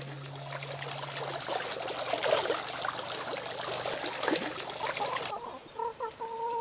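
Running water trickling and splashing, with a low musical drone fading out about a second and a half in. It cuts off suddenly near the end, and short repeated clucks of a hen follow.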